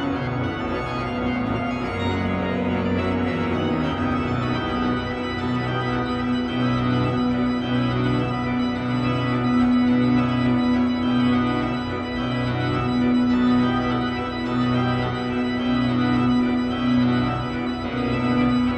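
Two-manual digital organ with pedalboard playing a piece of classical organ music: a held note sounds through the passage over repeated bass notes, with chords moving above.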